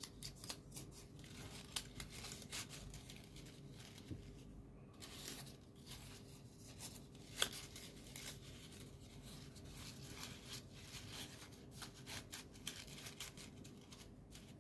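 Folded paper origami units rustling and crinkling faintly as they are handled and slotted together, with scattered small clicks and one sharper crackle about seven seconds in.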